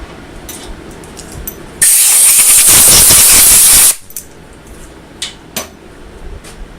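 Compressed-air blow gun hissing in one loud blast of about two seconds, starting and stopping abruptly, as metal chips are blown off the machined part. Light clicks and taps of metal come before and after it.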